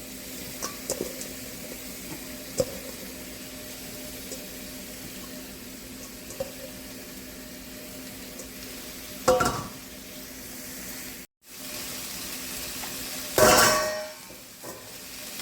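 Onions and bell peppers sizzling quietly as they sauté in a pan, with a few light clinks of a utensil early on. Two louder metal clatters of the utensil against the pan come about nine and thirteen seconds in.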